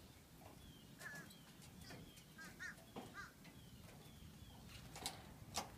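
Quiet outdoor ambience with faint scattered calls and chirps, and two sharp knocks close together near the end.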